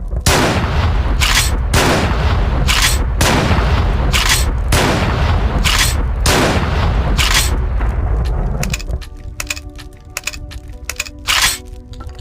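Pump-action shotgun sound effect, a Remington 870/Mossberg 500 hybrid, firing about ten blasts roughly a second apart over a low rumble. About nine seconds in the shots stop, giving way to quieter music with light clicks and one more short burst.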